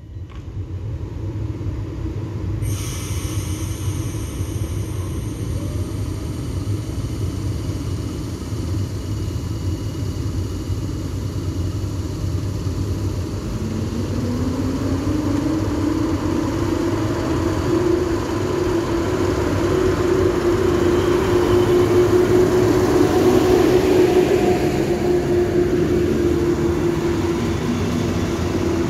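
EP07 electric locomotive pulling a passenger train out of the station: a low rumble that grows as the train gathers speed. Partway through, a motor whine rises in pitch and then holds steady as the locomotive and carriages pass close by.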